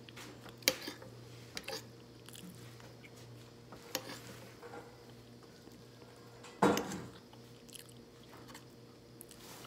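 A person eating with a fork from a plate: chewing, with a few sharp clicks of the fork against the plate and one louder knock about two-thirds of the way through, over a steady low hum.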